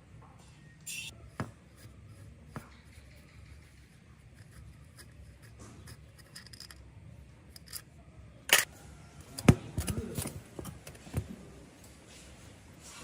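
Scattered clicks, taps and knocks of tools and metal parts being handled during hands-on work, with a cluster of louder, sharper clicks about two-thirds of the way through.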